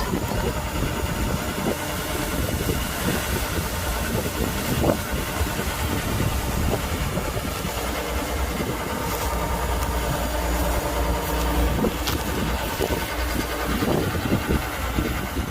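Kubota DC-105X combine harvester's diesel engine running steadily, with a constant low rumble.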